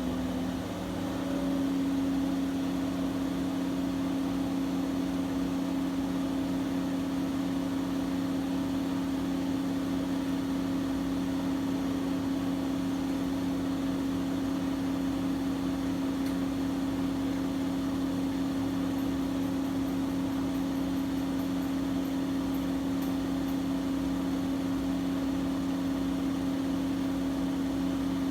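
Washing machine running with a steady motor hum; its pitch steps up slightly about a second in, then holds level.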